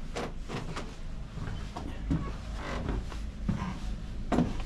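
A wooden cabin door being handled, with footsteps: an irregular run of knocks and clicks over a steady low hum. The loudest knock comes near the end.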